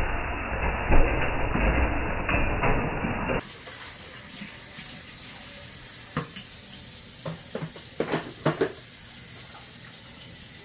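Kitchen faucet running into a stainless steel sink as bowls are rinsed by hand. The water is louder and duller for the first few seconds, then drops suddenly to a quieter, even hiss, with a few light knocks of bowls against the sink.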